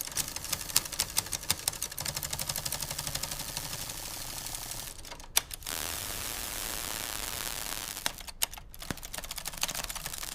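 Mechanical typewriter clattering: rapid clicks of keys and typebars striking, with two brief breaks, about five seconds in and again about eight seconds in.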